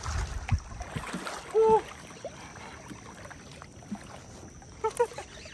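Shallow water sloshing and splashing around a wading angler's legs as he fights a fish on a bent spinning rod. A short, loud vocal cry comes about a second and a half in, and a few shorter ones near the end.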